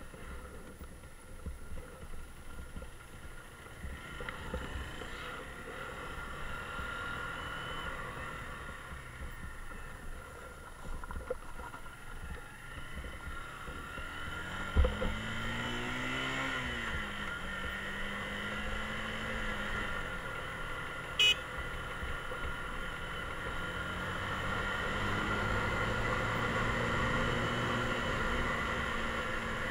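Mondial Drift 125 motorcycle on the move, with steady wind and road noise. About halfway through there is a sharp knock, then the engine note rises and falls. A little later a short, sharp high beep sounds.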